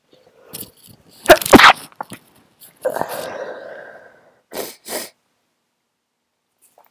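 A person with a head cold sneezing, stifled: a sharp double burst about a second and a half in, the loudest part. A drawn-out voiced breath follows, then two short bursts near the end.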